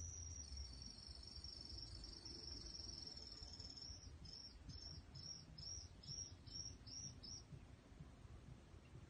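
Faint, high-pitched insect call. A steady trill breaks about four seconds in into a run of about eight short chirps, two or three a second, which stop a little after seven seconds. A low drone dies away in the first second.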